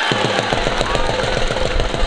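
Fast, even drum beating, about a dozen strokes a second, over crowd noise, with a steady held tone above it.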